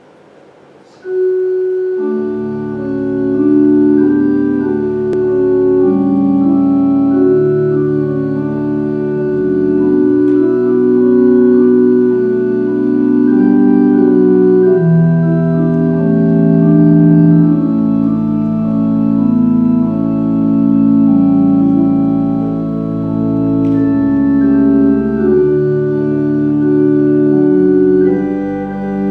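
Organ playing slow, held chords, starting about a second in.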